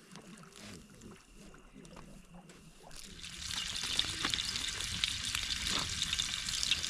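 Horumon (offal) and miso sauce in a hot grill pan start to sizzle and crackle about three seconds in, growing louder. The first seconds hold only small clicks and taps.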